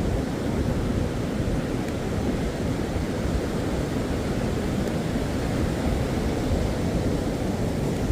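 Ocean surf heard as a steady, low, even rush of noise, with no single wave breaking out of it.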